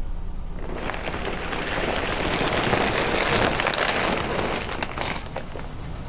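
Car tyre rolling slowly over a pile of brittle objects, crushing them with a dense run of crackling and crunching that builds up and stops suddenly after about four and a half seconds, over the low rumble of the vehicle.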